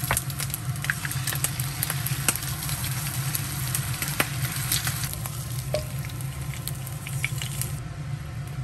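Food frying in a pan: a steady sizzle with many small crackles and pops, over a constant low hum.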